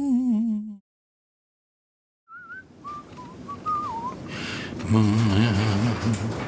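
A person humming breaks off, then after a short silence whistles a few wavering notes; a low hummed tone follows over a background hiss.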